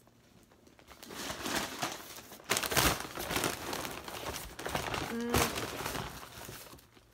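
Brown paper takeout bag crinkling and rustling as it is opened and rummaged through, starting about a second in and loudest around the middle.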